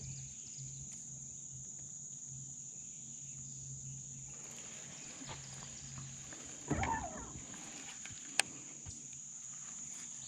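Steady high-pitched drone of insects, crickets or cicadas, unbroken throughout. A low hum under it stops a little after four seconds in, and there is a brief voice near the middle and a single sharp click about eight seconds in.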